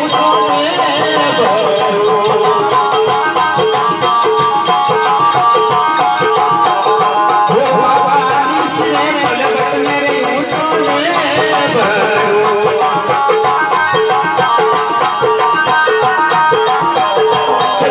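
Live Rajasthani folk bhajan music: a sustained melody over steady, evenly repeating percussion.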